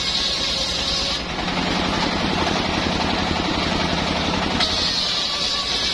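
Engine-driven homemade circular saw bench ripping a hardwood board, with the engine running steadily underneath. The high cutting whine stops about a second in as the board clears the blade, leaving the saw running free, and starts again near the end as the next board is fed in.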